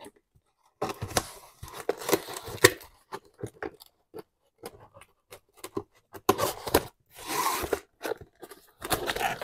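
A rolled-up diamond painting canvas being slid back into its cardboard kit box and the box being closed: irregular crinkling, rustling and cardboard scraping, with a few sharp clicks and a longer rustle about seven seconds in.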